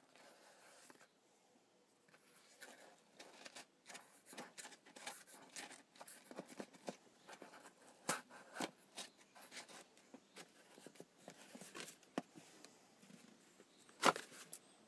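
Corrugated cardboard and a cardboard tube being handled and worked by hand: scattered rubbing, scraping and clicking, with one louder knock near the end.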